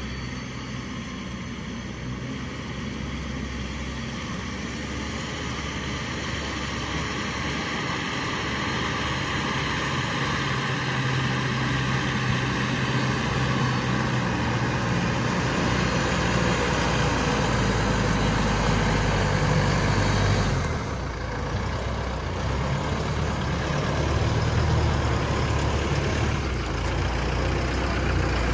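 Diesel engine of heavy farm machinery running steadily, growing louder over the first twenty seconds, easing off briefly about three-quarters of the way through, then picking up again.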